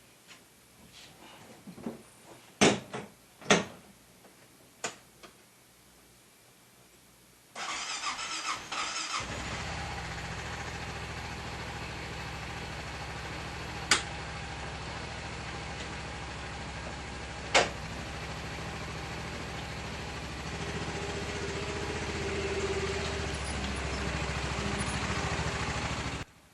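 A few sharp clicks, then about seven and a half seconds in the Honda Pioneer 700 side-by-side's single-cylinder engine is cranked, catches and settles into a steady idle. Two sharp clicks come during the idle, and the engine sound cuts off suddenly near the end.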